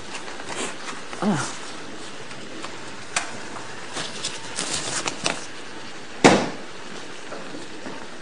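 Kitchen clatter: utensils and dishes clinking and knocking on a counter, scattered sharp clicks with one louder clunk about six seconds in.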